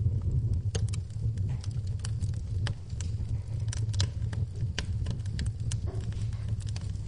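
Wood fire burning in a fireplace: a steady low rumble of flames with irregular sharp crackles and pops from the burning logs, several a second.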